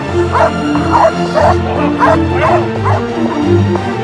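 Belgian Malinois barking repeatedly at a training decoy, about two sharp barks a second, stopping shortly before the end, over background music with a steady bass line.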